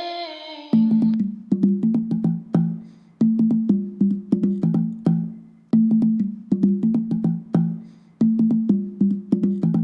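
Instrumental intro music. A short rising tone opens it, then a repeating rhythmic figure of low notes with sharp clicking percussion comes round about every two and a half seconds.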